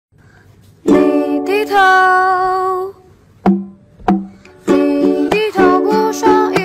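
Background music: plucked strings with a voice, a long held note starting about a second in, then a run of short, quick notes from about two-thirds of the way through.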